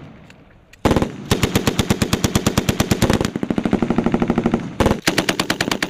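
M240B belt-fed 7.62×51mm machine gun firing bursts of automatic fire at about ten shots a second: a short burst about a second in, a longer one of about two seconds, then more bursts near the end.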